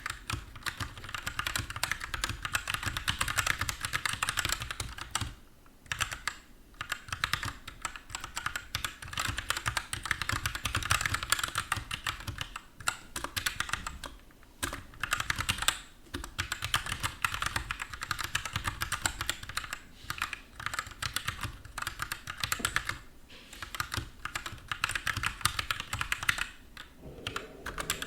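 Fast, continuous typing on an Anne Pro 2 mechanical keyboard with Gateron switches and pudding keycaps, a dense run of key clicks broken by a few brief pauses.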